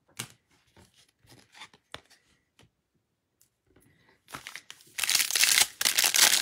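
Wrapper of a 2021 Bowman Draft jumbo pack of baseball cards being torn open and crinkled, loud and continuous from about five seconds in. Before it, a few soft clicks of cards being handled.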